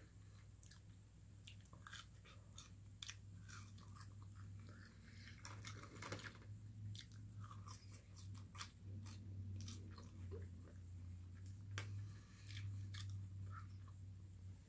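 Close-miked chewing by a person eating, with many irregular short mouth clicks and smacks, over a steady low hum.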